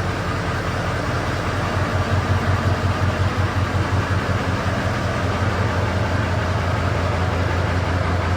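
A vehicle engine idling steadily with an even low pulse.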